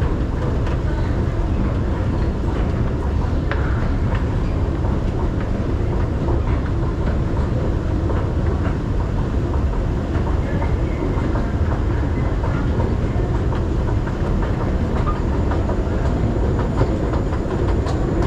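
Long MRT station escalator running: a steady low rumble from the step chain and machinery, with faint scattered clicks from the steps.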